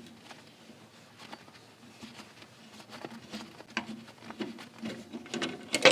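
Irregular light clicks and taps of small parts being handled, with a sharper knock near the end.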